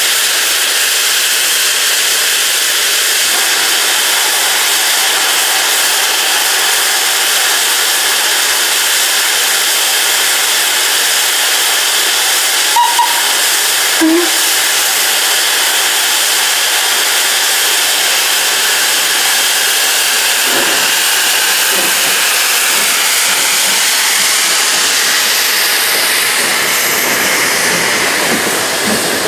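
Steady, loud hiss of steam escaping from a standing steam locomotive, with two brief clicks about halfway through.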